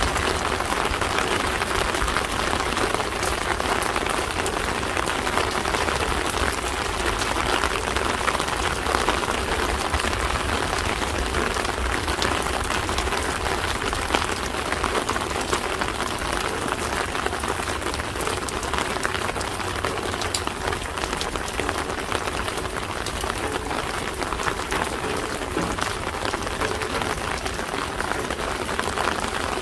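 Steady rain falling, an even hiss of many small drop impacts.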